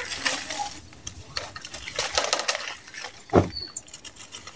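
Dry sand-cement chunks crunching and crumbling in bare hands, with gritty crackles and grains pouring onto the slabs below. One heavier knock about three and a half seconds in.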